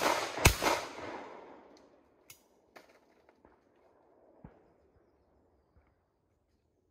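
Shotgun fired at a sporting clay target, the second shot of a pair about half a second in, with an echo rolling back from the wooded valley and dying away over a second or so. A few faint clicks follow.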